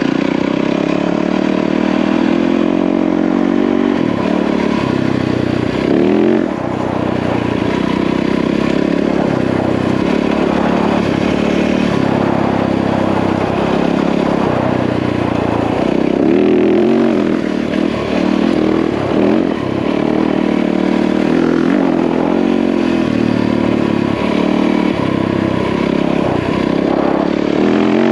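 Yamaha WR450F single-cylinder four-stroke dirt bike engine running under way, its revs rising and falling with the throttle, with brief revving surges about six seconds in and again about sixteen seconds in.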